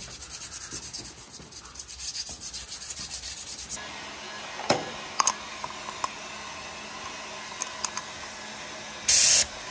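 Sanding sponge rubbed fast back and forth over hardened filler putty, a rhythmic scrubbing of about five strokes a second that stops about four seconds in. Then a few small clicks of a spray gun being handled, and a brief loud hiss near the end.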